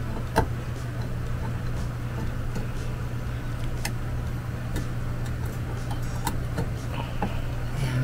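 A few sharp clicks and taps, the loudest about half a second in, from hands handling a plastic ceiling-fan canopy and downrod during installation, over a steady low hum.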